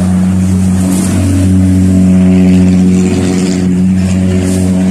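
A motor vehicle engine running close by, a steady low hum that rises in pitch about a second in as it revs up.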